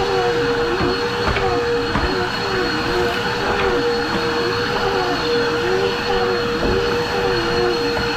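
Two Dirt Devil vacuum cleaners running together: a steady motor whine with a second tone swooping up and down about every three quarters of a second, and a few faint clicks.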